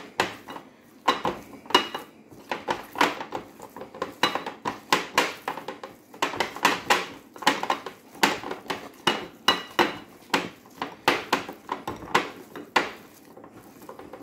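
Chicken being mixed by hand in a glass bowl: fingers and meat knocking against the glass in repeated clinks, about two a second, some with a short ring. The clinks thin out near the end.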